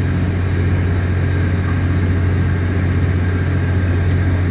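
An engine running steadily at constant speed with a strong low hum, as from a fishing boat's engine or generator.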